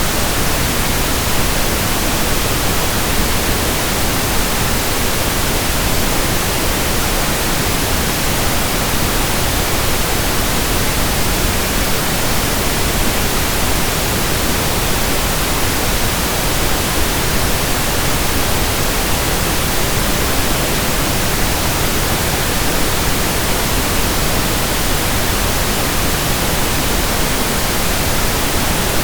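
Steady pink noise: an even, unbroken hiss across the whole range of pitch, with no change in level.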